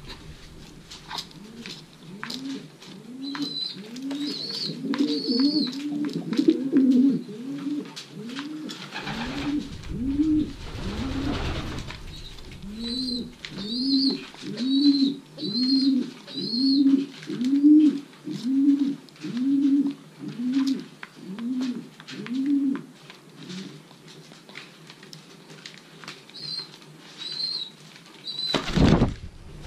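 Racing pigeons cooing: two long runs of low, arching coos about one every 0.7 seconds, with high chirps over them. There is a brief rush of noise midway and a short loud burst near the end.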